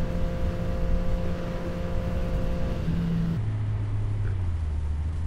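Yamaha FZ-09's three-cylinder engine running at a steady cruising note under way. A little over three seconds in, the note drops to a lower steady pitch.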